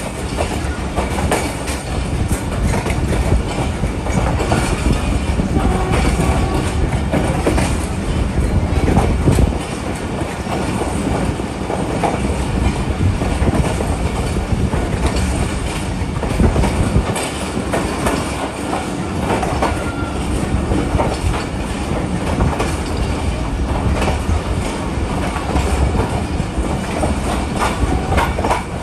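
Passenger train running on the rails: a continuous rumble with the clickety-clack of wheels over rail joints.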